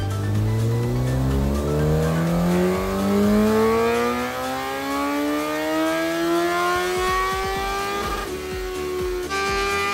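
Honda CBR954RR inline-four engine on a chassis dynamometer making a full-throttle pull: its pitch rises steadily for about eight seconds toward the top of the rev range, then breaks up and cuts off about nine seconds in. The engine is freshly overhauled after 150,000 km, and this is a horsepower measurement run.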